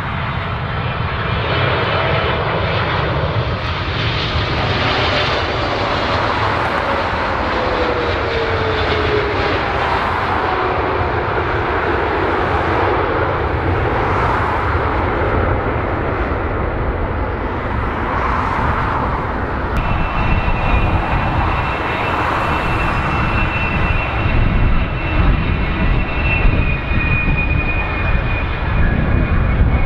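Boeing 777-300ER's General Electric GE90 turbofans, first passing on landing approach with an engine tone that slowly falls in pitch, then rolling out on the runway. About two-thirds of the way through the sound changes abruptly to the same engines heard head-on, with a steady high-pitched fan whine over the rumble.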